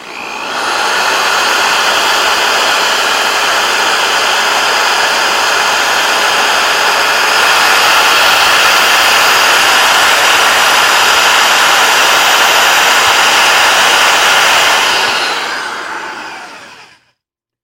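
Power drill running steadily, spinning a screw held in its chuck against 180-grit emery cloth: a loud motor whine with a sanding hiss as the screw is polished, rising slightly about halfway through and winding down near the end.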